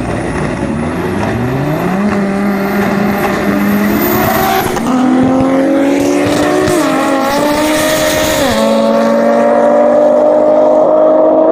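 Two turbocharged Audi drag cars, an inline-five turbo Audi TT of about 1300 hp and a 2.8 V6 biturbo, accelerating flat out down the strip. The engine note climbs steadily and drops back at each gear change, about three shifts in quick succession.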